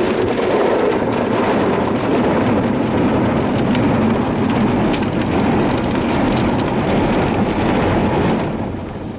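Soft-touch car wash gantry working over a truck: spinning wash brushes and water spray beating on the body, heard from inside the cab as a loud, dense rain-like rush. It dies down sharply near the end.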